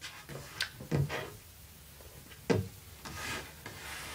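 A few light knocks on a wooden tabletop, spaced about a second apart, then a soft breathy rush near the end as the man recovers from a harsh shot of whiskey.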